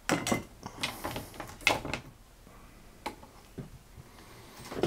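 Handling noises: a scattered series of light clicks and knocks, about ten in five seconds, as a length of red hookup wire is pulled out and brought over the computer's circuit board.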